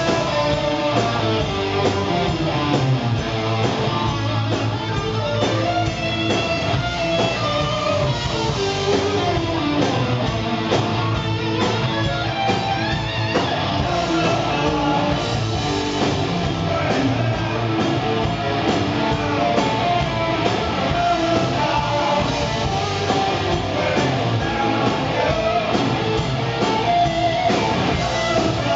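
Live rock band playing: electric guitar over bass guitar and drums.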